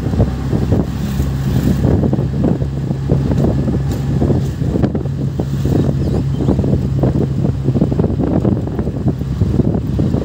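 Engine of a moving road vehicle, heard from on board, running at a steady speed with a constant low hum, and wind buffeting the microphone.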